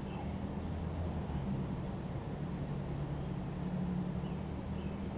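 Small bird chirping: high, quick notes in groups of three or four, repeating about once a second, over a steady low hum.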